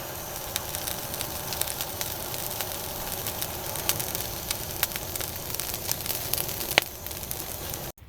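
Wood campfire in a fire pit crackling, with scattered sharp pops over a steady hiss; it cuts off suddenly near the end.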